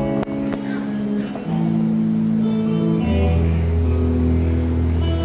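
Instrumental intro of a band's song: guitar chords ringing out, with a deep bass guitar note coming in about three seconds in.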